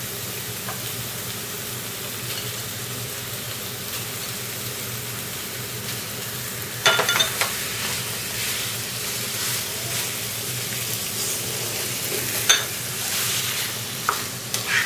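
Masala paste and raw chicken pieces sizzling in oil in a nonstick pan. From about seven seconds in, a spatula stirs and scrapes through the pan, with a few sharp knocks against it.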